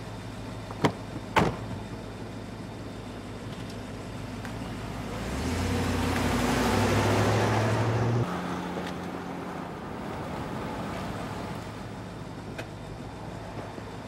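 A car pulls away, its engine and tyre noise swelling to the loudest point and then cutting off abruptly, over a steady low hum. Two short knocks come about a second in.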